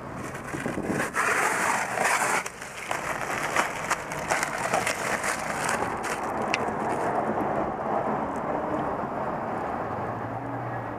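Clear plastic sheeting crinkling and rustling as it is handled, with dense crackling in the first few seconds, then a steadier rustle.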